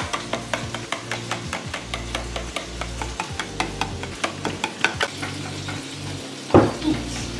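Pancake batter being stirred by hand in a mixing bowl, the utensil clicking rapidly and regularly against the bowl, with one louder knock near the end.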